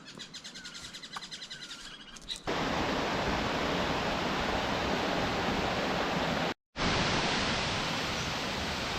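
Faint, fast, high chirping for about the first two seconds, then a sudden cut to the steady, loud rush of a waterfall, broken once by a split-second gap a little past halfway.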